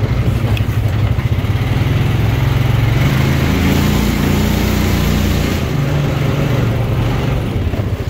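Quad bike (ATV) engine running under way, the engine climbing in pitch about three seconds in and easing back down a couple of seconds later.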